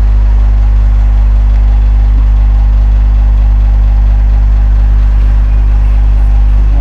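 Loud, steady electrical hum: a low buzz with evenly spaced overtones that does not change.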